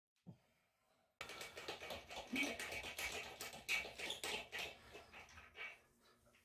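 Scratchy rubbing and handling noise as a hand wipes over the bare porcelain rim of a toilet bowl around the seat bolt holes. It starts about a second in and fades out shortly before the end.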